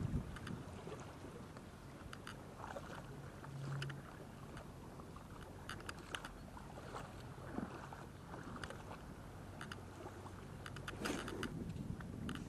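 Kayak moving over water: small splashes and water sounds against the hull, with scattered short strokes over a faint, steady low hum.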